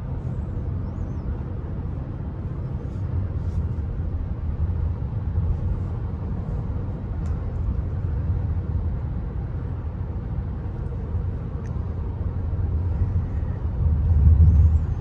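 Steady low rumble of road and engine noise inside the cabin of a 2022 Hyundai Santa Cruz pickup driving along a road, swelling louder briefly near the end.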